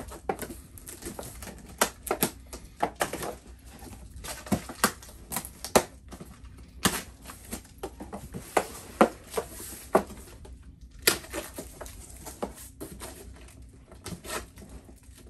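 A cardboard shipping box being opened: packing tape slit with a small hand tool and ripped off, cardboard flaps scraping and bending. An irregular string of sharp clicks, scratches and tearing snaps.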